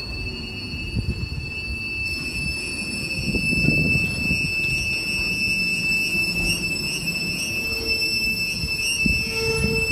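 Freight train's wagons rolling slowly through the passing loop, with a steady high-pitched wheel squeal over a low rumble. Wind buffets the microphone.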